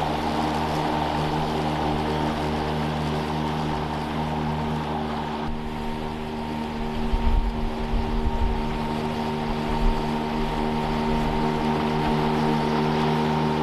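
Toro 60V Flex Force battery lawn mower running steadily while cutting grass in mulching mode: an even electric motor and blade hum with a high whine held on one pitch. A few swells of low rumble come around the middle.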